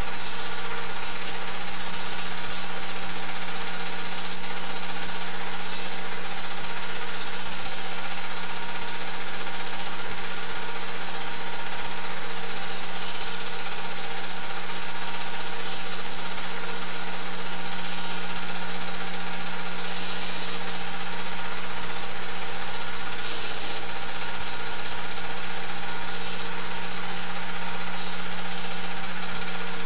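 Super 8 film projector running: a steady motor hum and whir with several fixed tones, unchanged through the cuts between shots.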